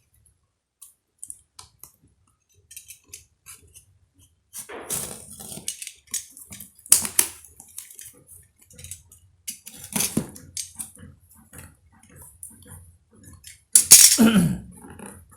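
A mailed parcel being opened by hand. There are scattered small clicks and taps, then irregular rustling and crinkling of the paper and plastic packaging from about four seconds in, with a louder burst of handling or tearing near the end.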